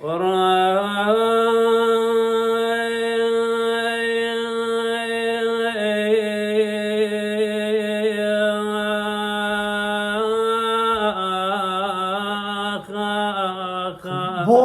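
A solo male voice sings an Iraqi mawal, drawing out one long held note for about ten seconds, shifting pitch slightly about six seconds in. Over the last few seconds the note breaks into wavering melismatic ornaments.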